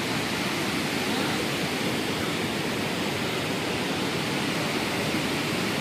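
Waterfall pouring: a steady, even rush of falling water with no break or change.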